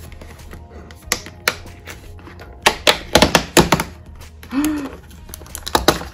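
Sharp clicks and taps of a cardboard calendar box being handled as a small compartment is popped open, with a quick cluster of clicks about three seconds in.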